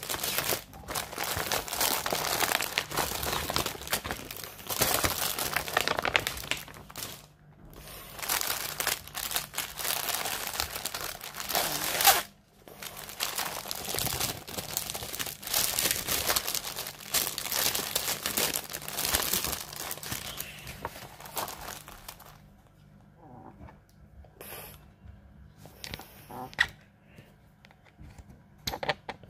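Cross-stitch kit packaging crinkling and rustling as it is handled and opened, with a sharp crackle a little before the middle. For the last several seconds the rustling gives way to a few light clicks and knocks.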